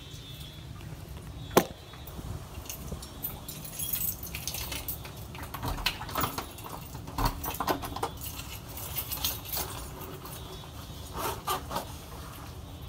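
Front door pushed shut with a sharp knock about a second and a half in, then a bunch of keys jangling and clicking in the door lock as it is locked.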